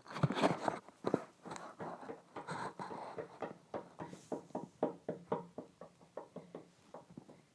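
Knocking: a few louder knocks in the first second, then a quick run of lighter taps, about four or five a second, from about three seconds in that fades out near the end.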